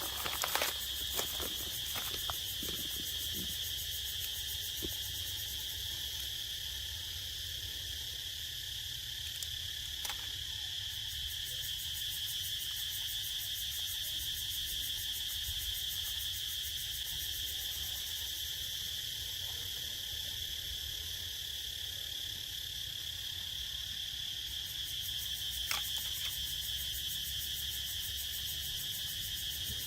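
A steady, high insect chorus drones without a break. There are a few faint clicks in the first couple of seconds.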